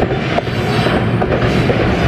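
Covered hopper cars of a freight train rolling past close by: a steady rumble of steel wheels on rail, with a few sharp knocks as the wheels pass over the track.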